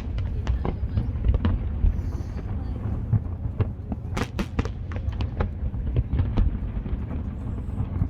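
Aerial fireworks bursting in a dense barrage: many sharp bangs, several a second, over a continuous low rumble, with a louder cluster of bangs about four seconds in.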